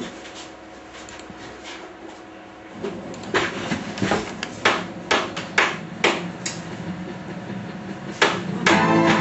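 About ten sharp, irregularly spaced knocks after a quiet first few seconds. Music comes in near the end.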